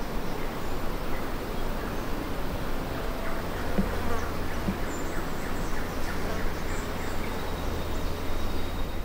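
Outdoor bush ambience: insects buzzing steadily over a constant low rumble.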